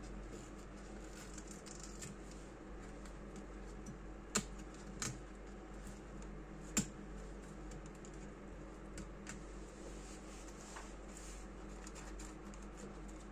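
Light clicks and taps of hands handling the parts of an opened all-in-one desktop computer, with three sharper clicks about four, five and seven seconds in, over a steady low hum.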